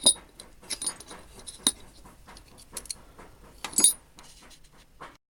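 Small steel measuring tools and gauges being handled in a toolbox drawer, clinking against each other with short metallic rings, about five separate clinks a second or so apart. The sound cuts off abruptly just before the end.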